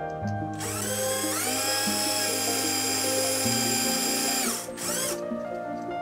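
Small electric drill with a fine twist bit boring into a resin keycap: the motor's whine rises in pitch about a second in, holds, then cuts off, followed by a brief second burst. Background music plays underneath.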